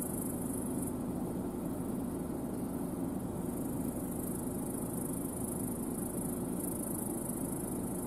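New Holland CR10.90 twin-rotor combine harvester running steadily as it harvests, a low even hum. A high insect buzz over it stops about a second in and starts again a few seconds later.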